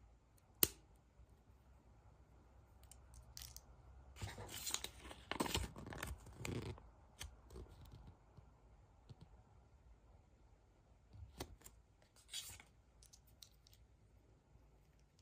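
Packaging being handled and torn open by hand. A sharp click comes about half a second in, then a few seconds of tearing and rustling in the middle, then scattered clicks and a short rustle near the end.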